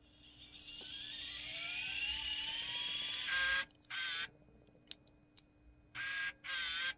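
Aiwa HD-S200 DAT recorder's tape mechanism winding the tape, a whine that rises steadily in pitch for about three seconds, followed by four short bursts of sound of about half a second each.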